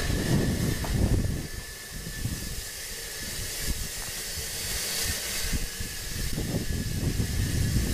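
Narrow-gauge steam tank locomotive No. 190 moving slowly, hissing steam over a low rumble. The sound is louder for the first second and a half, drops back, then builds again near the end.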